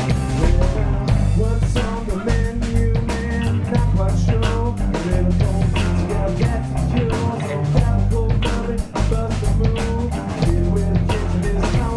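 Rock band playing an instrumental passage: electric guitar, bass guitar and drum kit with a steady beat and rimshots.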